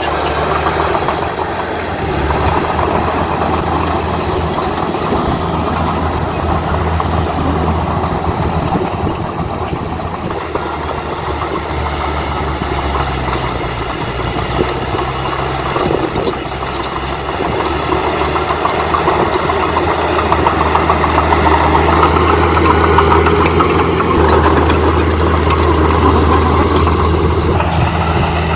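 Heavy diesel engine of an earthmoving machine running continuously. Its low hum steps in pitch a few times as the revs change, and it grows louder in the second half.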